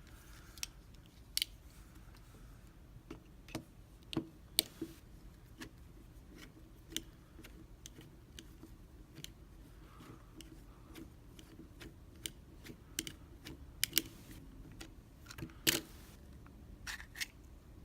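Scattered sharp clicks and taps of a small screwdriver working inside a small lockout padlock to take it apart, at irregular intervals, with a couple of louder clicks about four and a half seconds in and near the end.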